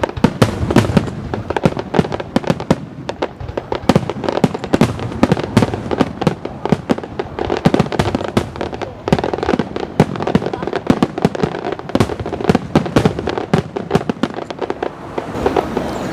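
Aerial fireworks bursting in rapid, irregular succession: a dense barrage of bangs and crackles, several a second, without a break.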